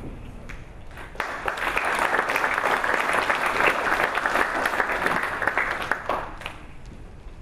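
Audience applauding. The clapping starts about a second in, holds steady, then dies away about six seconds in.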